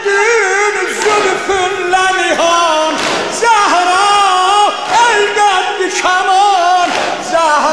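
A man singing a Shia mourning lament (noha) in Azerbaijani Turkish, in an ornamented, wavering line of long held notes that glide between pitches.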